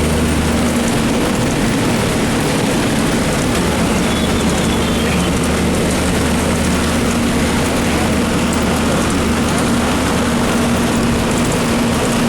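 Public bus engine running steadily under a dense, even hiss of heavy rain and wet-road noise.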